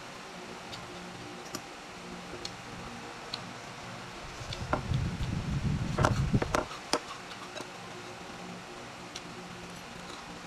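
Eating sounds: scattered small mouth clicks from chewing, then a cluster of sharp clinks and taps about five to seven seconds in as a metal fork digs salad from a bowl. A faint steady hum runs underneath.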